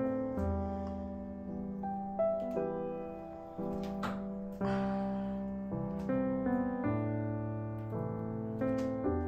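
Background piano music: notes and chords that are struck and then fade, a new one about every second.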